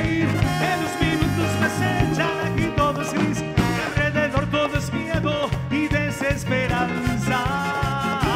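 A cuarteto band playing live, with a steady bouncing bass beat under melodic instrumental lines.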